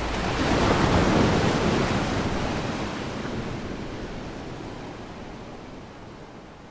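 A wash of ocean surf, swelling about a second in and then slowly fading out.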